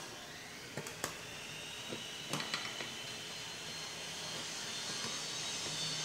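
A steady hiss with a faint high whine from an unseen machine, slowly growing louder, is the main sound. Over it, a few sharp clicks of a hand screwdriver working the screws of a blender's plastic base come about one second in and again about two and a half seconds in.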